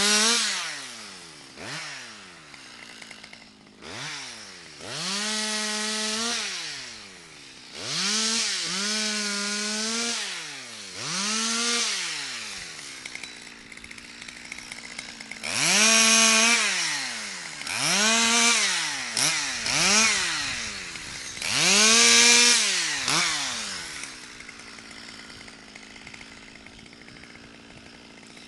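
Stihl 200 two-stroke chainsaw being revved to full throttle again and again, held at high revs for a second or two at a time while cutting off birch branches, and dropping back between cuts. Near the end it settles to a steady idle.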